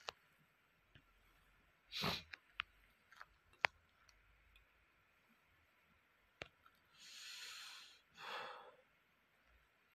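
A person's breathing close to the microphone: a short sniff about two seconds in, then a longer breath out and in near the end. A few light clicks fall in between.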